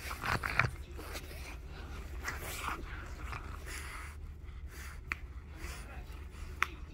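French bulldog chewing and tugging on a plush chicken toy held in a hand, making irregular rustling and scraping noises that are loudest in the first second, with two sharp clicks in the second half.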